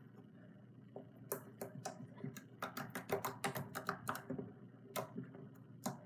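Soft fluffy, jiggly slime being squished and poked by hand, giving an irregular run of crisp pops and clicks that start about a second in and come thickest in the middle.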